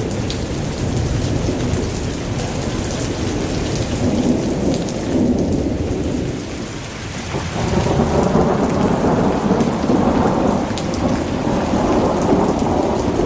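Heavy rain pouring steadily, with a deep rumble underneath. It eases for a moment about seven seconds in, then comes back louder.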